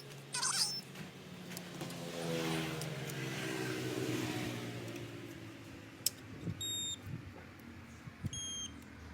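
A motor vehicle engine running and passing by, its pitch rising and falling before fading out, then two short electronic beeps near the end.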